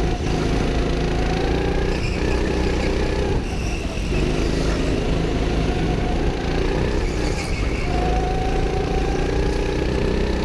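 Rental go-kart engine heard on board at speed, its pitch climbing as it accelerates and dropping back as it slows for the corners, several times over.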